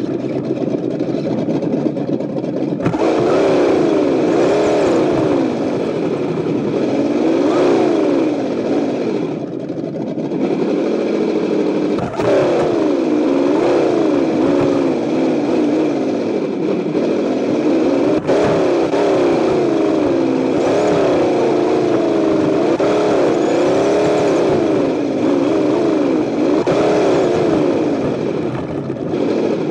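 Simulated engine sound from an Associated ESS-One sound unit on board a Tamiya Lunch Box RC truck, revving up and down over and over as the throttle changes, over a steady rushing noise. A few sharp knocks come through, about three, twelve and eighteen seconds in.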